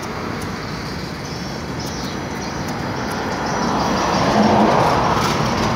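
Steady rushing noise of road traffic, swelling louder as a vehicle passes about four to five seconds in.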